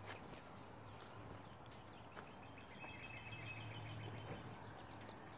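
Faint backyard outdoor ambience with a short, high bird call about three seconds in and a few light ticks.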